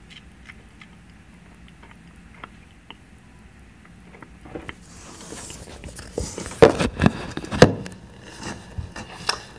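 Handling noise from the recording phone or camera as it is moved and set down. A faint hum with small ticks gives way, about halfway through, to rustling and scraping, then several sharp knocks, the loudest about two-thirds of the way in.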